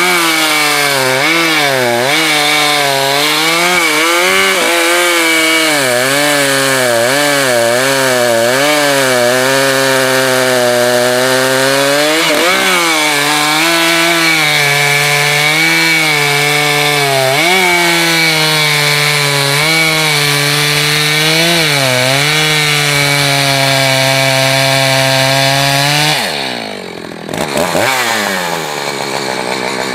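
Echo chainsaw cutting through a large firewood log, its engine pitch wavering up and down as the chain bites into the wood. About 26 seconds in, the revs drop away sharply for a moment, then climb back to full throttle.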